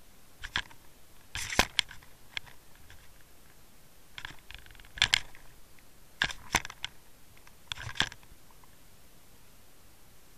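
Irregular short clicks and scraping knocks, in about half a dozen clusters over a low hiss, picked up underwater by the camera on the fishing line.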